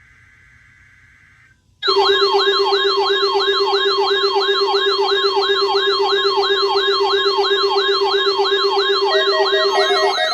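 NOAA weather radio receiver sounding its siren alert during the weekly warning alarm tone test. It starts suddenly about two seconds in: a quick falling wail, repeating about three times a second, over steady tones.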